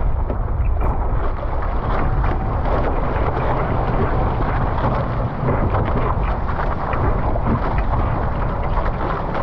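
Wind buffeting the microphone in a steady heavy rumble, over water rushing and splashing past a Nacra 15 sailing catamaran under way.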